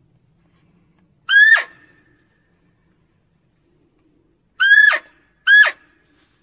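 Red muntjac (barking deer) barks, the kind used as a hunting lure call: three short, sharp calls, one about a second in and two close together near the end.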